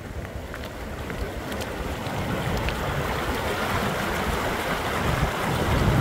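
Fast-flowing mountain stream rushing over rocks, with wind buffeting the microphone. The rush fades in and grows louder over the first two seconds or so, then holds steady.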